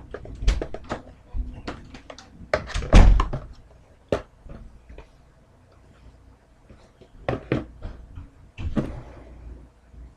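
A cardboard card box and foil card packs being handled on a tabletop: scattered taps, knocks and rustles, with one heavier thump about three seconds in and another cluster of knocks near the end.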